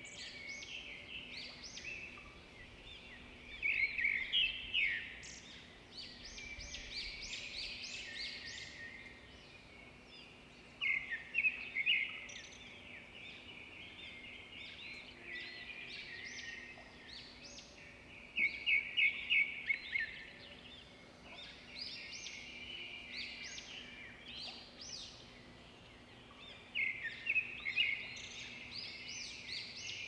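Songbirds singing in woodland: a loud phrase of rapid repeated notes comes back about every seven seconds, with softer chirps and trills in between.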